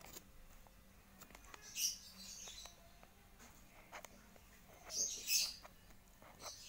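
Crinkling of a foil-lined paper food wrapper being handled, in two short bursts about two and five seconds in, with a few small clicks.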